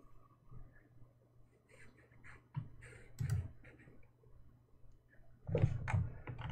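Quiet room tone with a few faint clicks, and a brief low murmur of a man's voice about five and a half seconds in.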